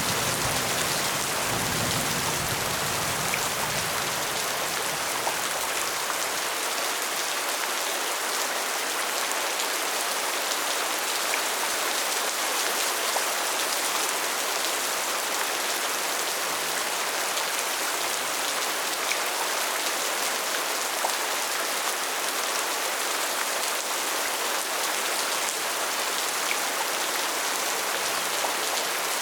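Rain falling steadily, an even hiss of many drops with scattered individual ticks. A low rumble of thunder dies away over the first few seconds.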